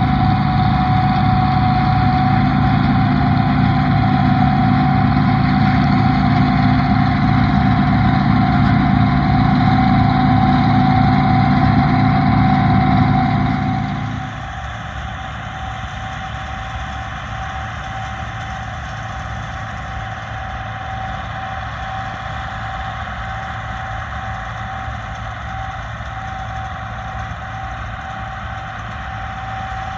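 Bizon Z056 combine harvester's diesel engine running steadily, with a constant whine above the engine note. About fourteen seconds in, the sound drops abruptly to a quieter, lighter hum as the deep engine note falls away, while the whine carries on.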